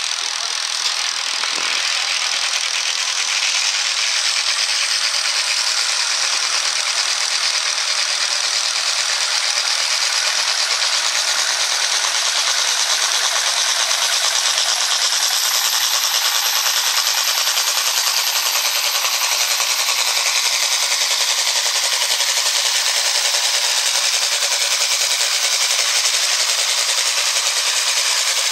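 Turbocharged International Harvester farm tractor engine running flat out under full load while pulling a weight-transfer sled, a loud, dense, steady rattle that builds over the first few seconds. A faint high whistle rises about halfway through.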